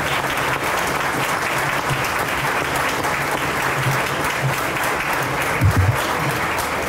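Audience applauding steadily, with a brief low thump near the end.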